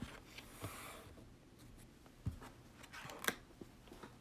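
Faint handling noise in a small room: a soft rustle early, a low knock about two seconds in, and a sharp click a little after three seconds.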